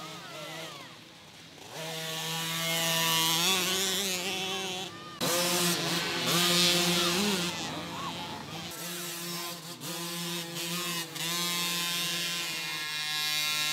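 Small 50cc youth dirt bike engines buzzing at high revs, the pitch rising and falling as the throttle is worked. The sound changes abruptly a couple of times.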